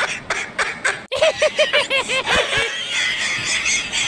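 Rapid, high-pitched giggling in quick repeated peals. It begins right after the previous clip's music cuts off sharply about a second in.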